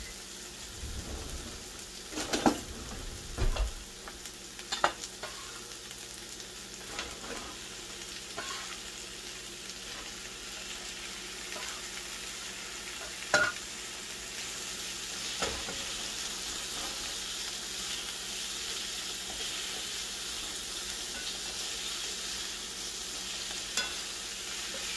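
Sliced onions and diced pineapple frying in oil in a skillet, a steady sizzle that grows stronger in the second half, while a plastic spatula stirs them. A few thumps in the first seconds and scattered sharp taps come from the pineapple being scraped in and the utensils knocking on the pan and cutting board.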